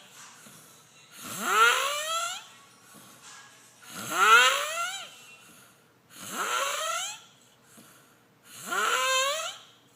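A chicken making snore-like calls, each rising steadily in pitch over about a second. Four come in a slow, even rhythm, about two and a half seconds apart.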